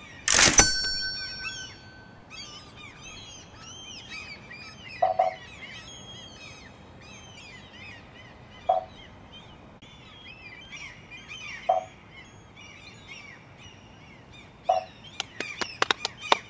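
Songbirds chirping and singing, with a short lower call repeating about every three seconds. About half a second in there is a sharp glass clink that rings briefly, and near the end a quick run of clicks.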